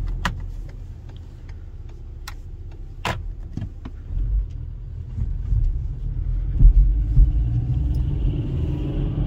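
Inside the cabin of a 2005 VW Golf V with its 1.4 petrol four-cylinder engine, pulling away and driving slowly: a steady low engine and road rumble, with a few sharp clicks in the first three seconds, getting louder from about six seconds in as the car picks up speed.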